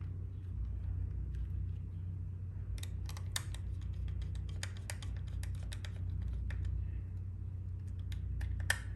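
Irregular light clicks and ticks of a screwdriver and wire being worked into a smart switch's screw terminal, thickest a few seconds in and again near the end, over a steady low hum.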